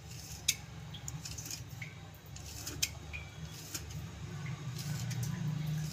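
Knife cutting a strip of rolled dough into small pieces on a wooden board: scattered soft taps as the blade meets the board, over a steady low hum.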